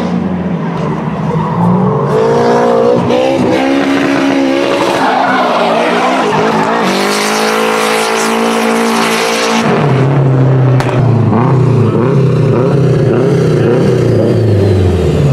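Nissan S13 drift car's engine revving hard through a drift, its pitch rising and falling with the throttle, with tyres skidding on the asphalt. Close to ten seconds in the revs drop suddenly to a lower, steadier note as the car comes out of the slide.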